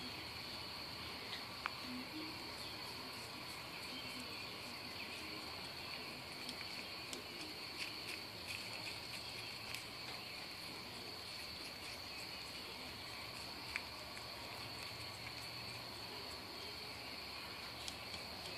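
Crickets trilling steadily in a high, even drone, with scattered faint clicks.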